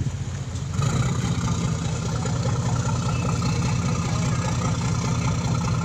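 Passenger ferry's diesel engines running steadily, a low hum that gets louder a little under a second in.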